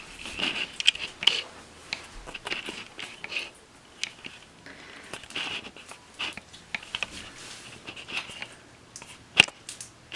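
Slime being squished and handled, giving a string of short wet squelches and sticky clicks, with one sharp click near the end.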